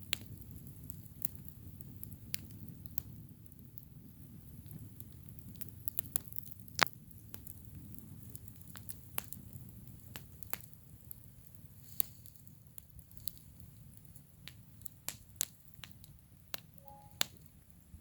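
Campfire crackling: irregular sharp pops and snaps, the loudest about seven seconds in, over a low steady rumble.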